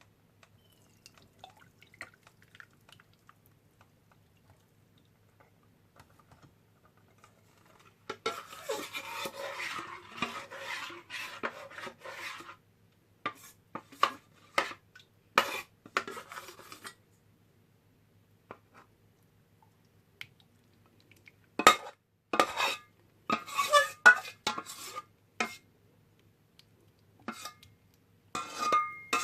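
Bánh xèo batter being stirred in a bowl: a few seconds of a utensil scraping and stirring about eight seconds in, then scattered sharp clinks and knocks of the utensil against the bowl and sieve.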